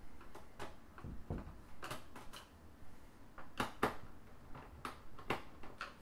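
Small screwdriver undoing screws in a laptop's bottom panel: irregular light clicks and scrapes of the tool on the screws and case.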